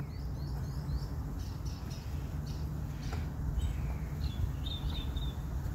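Small birds chirping in short repeated notes: a quick run of chirps in the first couple of seconds and another cluster about four to five seconds in, over a low steady background rumble.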